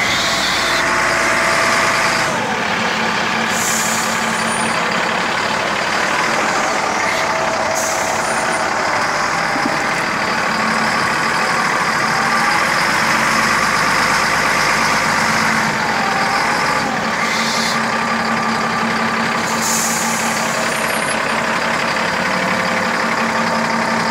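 Caterpillar 966D wheel loader running, its diesel engine and drivetrain heard close up at the wheel and axle, which are being checked for a differential noise. A steady mechanical din with a few short hisses.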